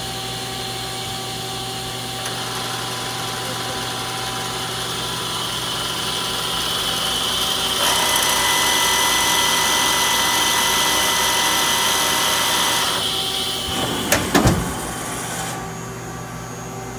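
Mazak Nexus QTN 300M CNC turning center running under power: a steady machine whine with several constant high tones that grows louder for a stretch in the middle. About fourteen seconds in come a few sharp clunks, and soon after the high whine drops away.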